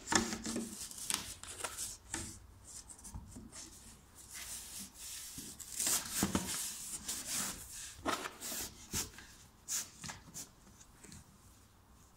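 Hands rubbing and rustling a van seat's upholstery cover as it is pulled over and pressed closed, with scattered light clicks from its plastic clip strips.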